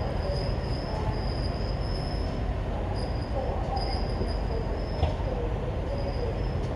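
Wheels of a steam-hauled passenger train (GWR Castle class 7029 Clun Castle and its coaches) squealing on curved pointwork in high, on-and-off tones over a low rumble from the rails. A single sharp knock comes about five seconds in.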